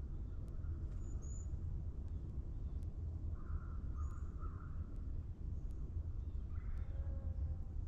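Forest morning ambience: a crow cawing, three short caws in quick succession about three and a half seconds in and another near the end. Faint high bird chirps sound over a steady low rumble.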